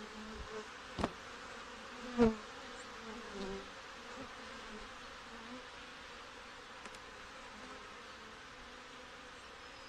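Honey bees buzzing steadily over an open hive. Two sharp knocks come about one and two seconds in, and the second is the louder.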